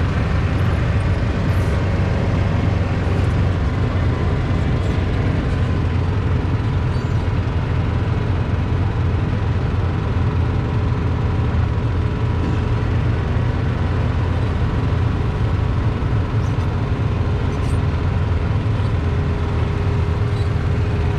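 Small utility vehicle's engine running at a steady speed while driving over concrete, a constant low drone.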